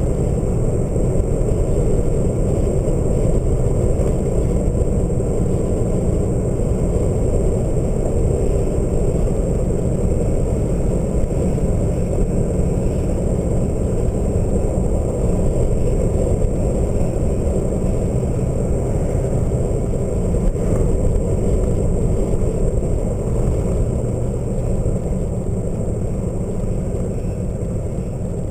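Steady rush of wind and road noise from a car driving at speed, easing slightly near the end.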